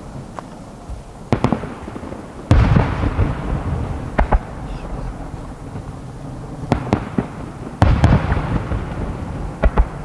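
Aerial firework shells bursting: about half a dozen sharp bangs, two of them (about two and a half seconds in and near eight seconds) heavier booms, each followed by a low rumble that slowly dies away.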